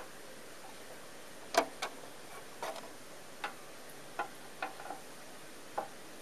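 A handful of short, sharp clicks or taps at irregular intervals over a steady faint hiss, the loudest about a second and a half in.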